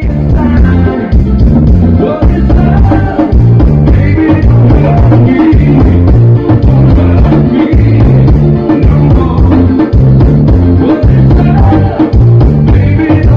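Loud music with a heavy, regular bass beat, drums and a singing voice.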